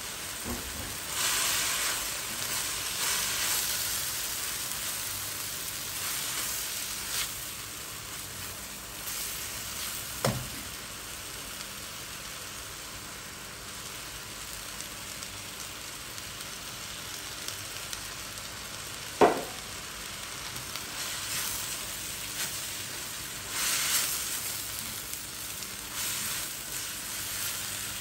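Shredded cabbage, carrot and egg sizzling in a stainless steel wok, with a spatula stirring and scraping through the food in bursts. There are two sharp knocks, about ten and nineteen seconds in, the second the loudest sound.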